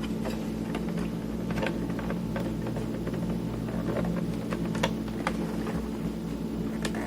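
Scattered light clicks and taps of hands working the casing of a Tascam Portastudio 414 MKII cassette recorder apart, over a steady low hum.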